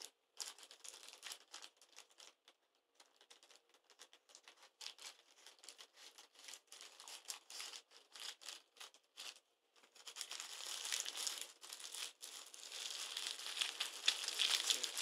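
Plastic courier mailer bag crinkling as it is handled and cut open with scissors: short scratchy rustles at first, then denser, louder crinkling from about ten seconds in as the bag is pulled open.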